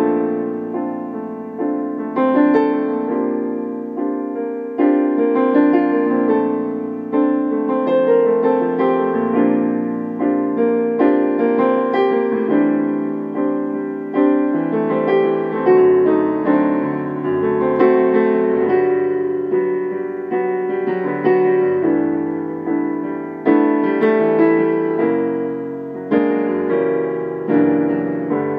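Digital piano played by hand: a slow original piece of chords and melody notes struck every second or so, each ringing out and fading.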